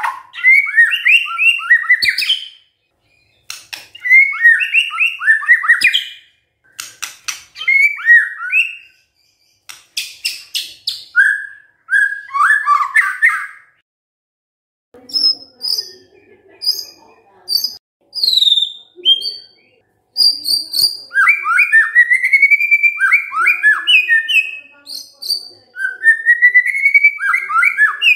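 White-rumped shama singing: bursts of varied whistled phrases mixed with rapid runs of sharp clicking notes, broken by short pauses.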